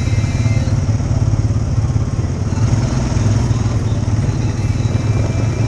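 ATV engine running steadily under way on a dirt trail, heard close from the rider's seat, with an even, pulsing low drone.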